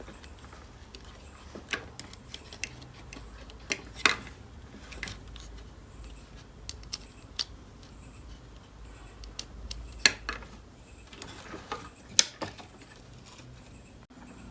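Scattered light clicks and taps of test leads and clips being handled and connected on an electronics workbench, with louder clicks about 4, 10 and 12 seconds in, over a faint low hum.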